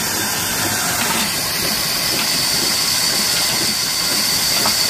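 Old black diesel engine's belt drive running: a flat belt over a spoked steel pulley on a line shaft, turning a wood-cutting saw, giving a steady mechanical din with hiss. A thin, high, steady whine comes in about a second in.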